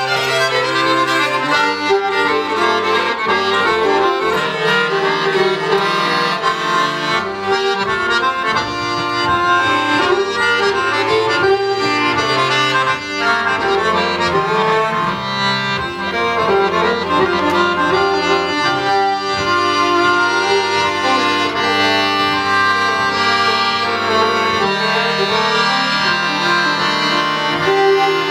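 Fiddle and chromatic button accordion playing a Scottish folk tune together, the accordion holding sustained bass notes under the melody.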